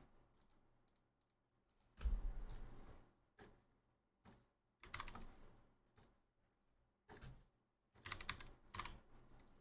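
Faint computer keyboard typing in short, scattered bursts of keystrokes, with quiet gaps between them.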